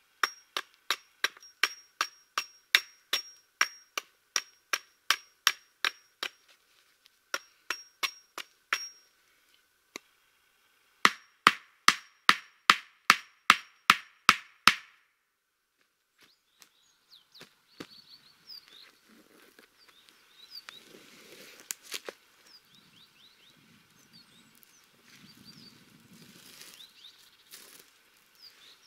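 Hatchet driving wooden stakes into the ground: sharp blows about two a second, stopping about nine seconds in, then a second, faster and louder run of blows that ends around fifteen seconds. After that come quieter rustling and handling sounds with small bird chirps.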